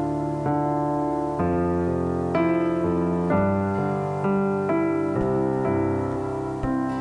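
Electric piano playing a slow worship-song intro of sustained chords that change about once a second.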